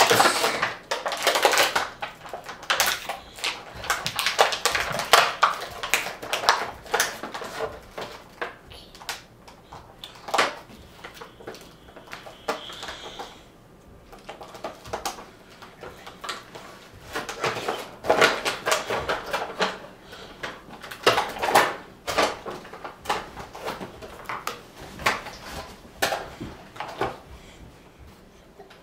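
Plastic blister pack and cardboard backing card of a boxed action figure being pried, crinkled and torn open by hand: a stream of irregular crackles and clicks, busier in stretches and quieter around the middle.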